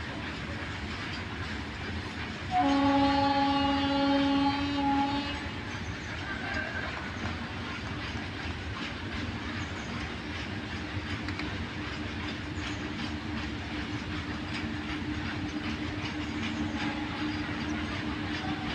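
Indian Railways WAG-9 electric freight locomotive sounding one long horn blast about three seconds in, lasting nearly three seconds and the loudest sound. Afterwards the train's running rumble grows slowly louder as it approaches.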